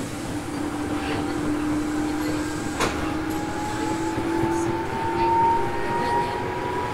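Tobu 850-type electric train heard from inside its motor car while running: the traction motors and gears whine, rising slowly in pitch as the train gathers speed, over a steady rumble of wheels on track. One sharp click comes about three seconds in.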